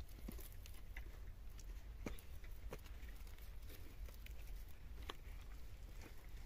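Faint scattered clicks and rustling from hands tying cord lashings onto the thin wooden sticks of a stick-frame door, over a low steady rumble.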